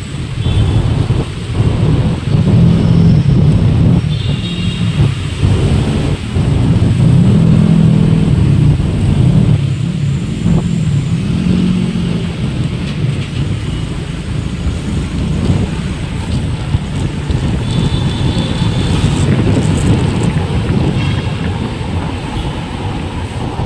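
Vehicle engine running while driving through traffic, its pitch rising and falling with speed, under heavy wind rumble on the microphone. A few short high-pitched tones come through.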